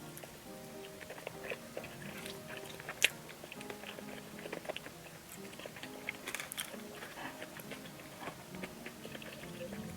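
A person biting and chewing pizza close to the microphone, with many small crisp crunches and one sharp crunch about three seconds in. Soft background music plays throughout.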